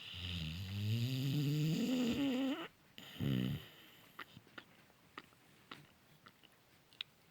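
Cane Corso puppy snoring in its sleep: one long snore that rises in pitch over about two and a half seconds, then a shorter one. Faint scattered clicks follow.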